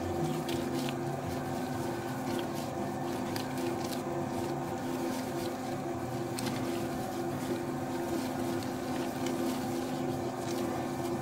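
Spiral dough mixer running on its lower speed, a steady motor hum with a constant tone as the spiral hook kneads a soft, high-hydration dough, with faint irregular clicks over it.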